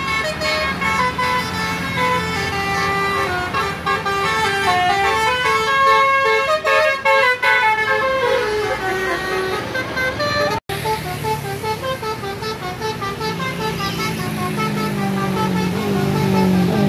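Tour bus 'basuri' musical horn, a multi-tone horn playing a quick melody of stepping notes. The sound cuts off abruptly about ten and a half seconds in and another horn tune starts, its lower notes getting louder near the end.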